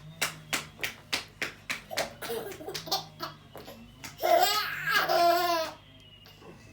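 A baby laughing excitedly: quick breathy bursts of laughter, then a longer high squealing laugh about four seconds in.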